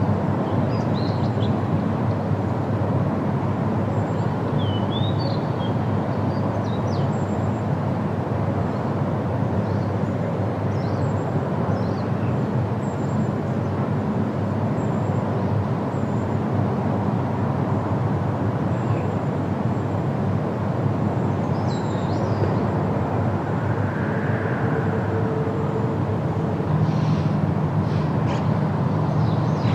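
Steady outdoor background rumble with brief high bird chirps scattered through it.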